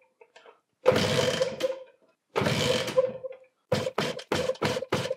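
Beta Evo two-stroke trials motorcycle engine being kicked over with its spark plug replaced by a compression tester, throttle wide open: three long kicks of about a second each, then a quick run of short strokes, about four a second, near the end. It is a cranking compression test on an engine suspected of low compression.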